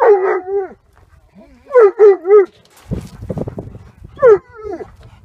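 Dog barking in loud, high yips: one longer bark at the start, three quick barks about two seconds in, and another near the end. A short rustling noise comes about three seconds in.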